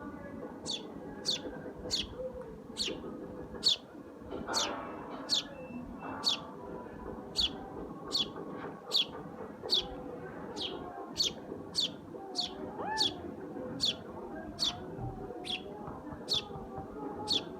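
A sparrow chirping over and over, short high chirps that each drop in pitch, about two a second in a steady rhythm, over a low background murmur.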